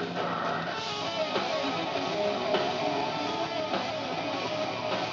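Live rock band playing loud electric guitars, bass and drums, heard through a camera microphone in a club.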